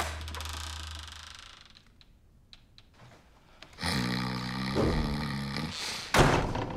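A man fakes sleep under a duvet with a drawn-out, exaggerated snore of about two seconds, followed by a sudden loud noise. Before that, the tail of a music sting dies away and a couple of faint clicks are heard.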